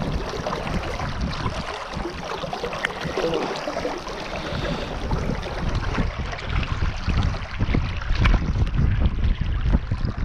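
Shallow river water rushing and splashing around the wading angler, with wind buffeting the microphone as a low rumble that grows heavier in the second half. A few sharp clicks of landing-net and reel handling come through near the end.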